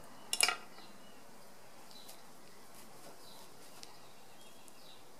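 A brief clatter of small hard objects about half a second in, then steady outdoor background with a few faint bird chirps.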